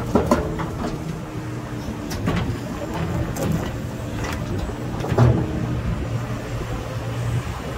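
Hitachi ZX470R excavator's diesel engine running steadily under hydraulic load as rock tips from its bucket into a steel dump-truck bed. Scattered knocks and clanks of stone on steel sound over it, the loudest about five seconds in.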